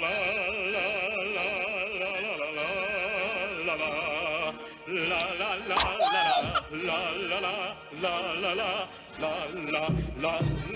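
Wordless operatic singing with heavy vibrato, several pitches at once. It breaks off briefly about four and a half seconds in, and a sliding note rises and falls just after.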